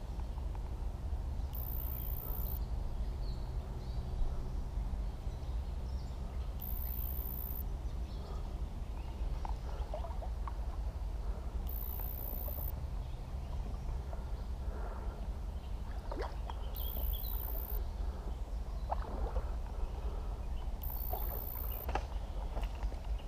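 River water sloshing and splashing over a steady low rumble, with scattered light knocks, as of someone wading in a shallow river.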